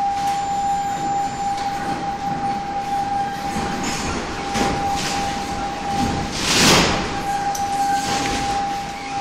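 Servo-hydraulic actuators driving a timber test building through a real-time hybrid simulation test: a steady high whine over a hiss of running hydraulics, with a loud surge of noise about two-thirds of the way through.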